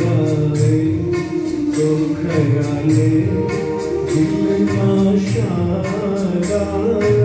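A man singing a ghazal into a microphone, with melodic accompaniment and a steady percussion beat.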